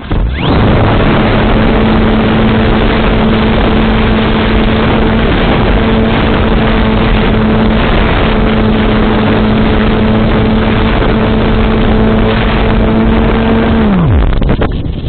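Volantex Phoenix S sailplane's brushless electric motor and propeller running at power: it spools up quickly about half a second in, holds a steady hum for about thirteen seconds, then winds down sharply near the end as the throttle is cut, over a wash of wind noise.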